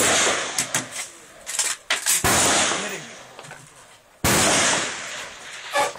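Gunshots: two loud shots about two seconds apart, each dying away over a second or more, with fainter sharp cracks in between.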